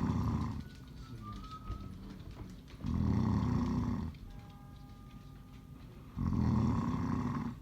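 A man snoring, one long, loud snore about every three seconds, each lasting about a second. Faint music plays between the snores.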